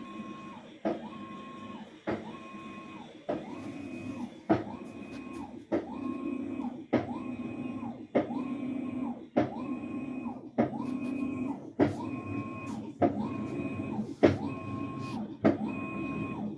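Washing machine in its wash cycle knocking sharply and regularly, about once every 1.2 seconds, with a motor whine that rises and holds between the knocks.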